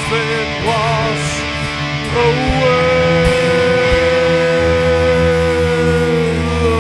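Hard rock band playing live: a lead electric guitar line with wavering, bent notes, then one long held note that sinks slightly in pitch, over bass and drums.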